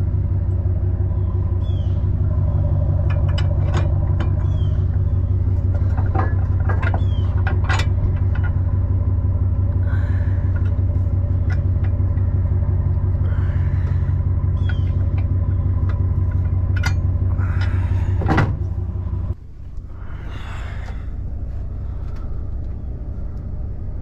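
Pickup truck engine idling steadily, heard loud from beside the rear bumper, with light metal clicks and clanks at the hitch. Near the end a door slams and the idle goes on muffled from inside the cab.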